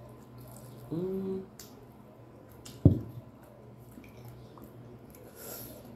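Close-up wet chewing and mouth sounds of people eating grilled sausage with their hands, with a short hummed "mm" about a second in and one sharp knock a little before the middle.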